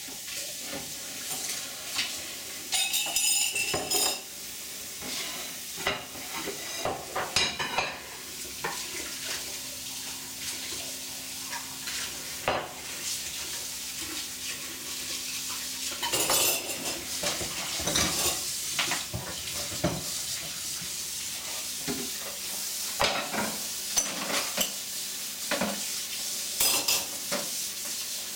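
Metal clattering and rattling from an oven's pull-out storage drawer. Scattered knocks, with a ringing cluster a few seconds in, sound over a steady hiss.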